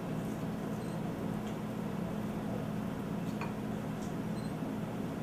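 Steady low hum, with a few faint light clicks from handling kitchenware.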